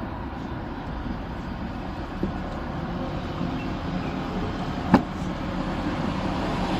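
Steady low rumbling background noise, slowly getting louder, with a sharp click about five seconds in.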